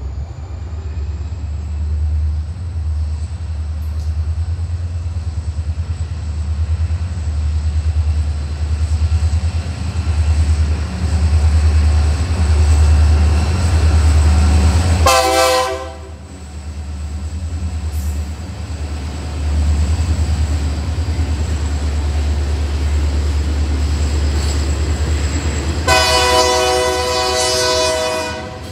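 EMD GP40 diesel locomotive hauling a freight train, its engine giving a steady low rumble. A short horn blast sounds about halfway through and a longer one, about two and a half seconds, near the end.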